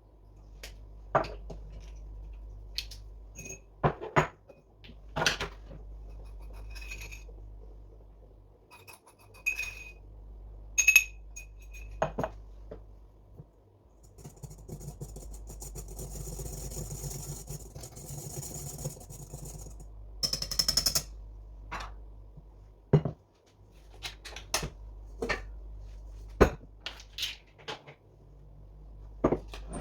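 Kitchen utensils and bowls clinking and knocking as baking ingredients are measured and mixed, with a few seconds of steady scuffing noise about halfway through and a low hum underneath.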